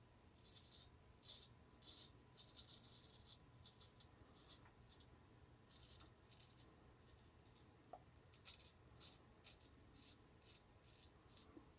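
Faint rasp of a straight razor scraping stubble off a lathered cheek, in a run of short, quick strokes with brief pauses between them.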